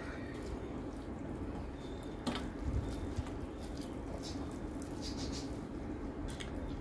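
Fingers mixing rice and dal on a steel plate: soft wet squishing with scattered small clicks, one sharper click about two seconds in, over a steady low hum.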